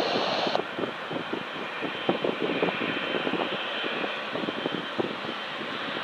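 Boeing 777-300ER's twin GE90-115B turbofans at taxi power as the jet turns onto the runway: a steady jet-engine rumble and hiss.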